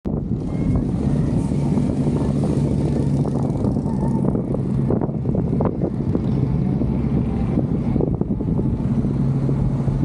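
Vehicle engine running with a steady low hum, mixed with tyre and road rumble and wind on the microphone while driving slowly, with a few light knocks.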